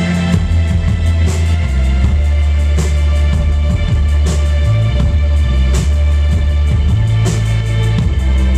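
A live rock band playing loudly: deep bass notes held and stepping between pitches, under drum and cymbal hits about every second and a half.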